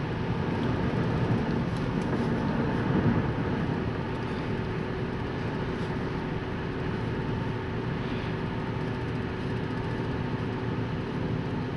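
Steady road and engine noise heard from inside a car cruising on an open road, a low, even rumble that swells slightly a couple of seconds in.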